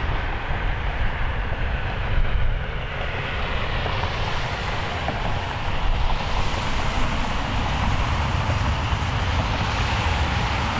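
Jet airliner engines running, a steady noise over a deep rumble that grows brighter about four seconds in.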